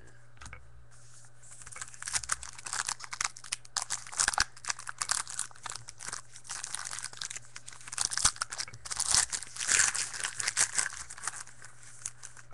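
Wrapper of a pack of baseball cards being torn open and crinkled, a dense crackly rustle that runs for about ten seconds, starting about a second and a half in.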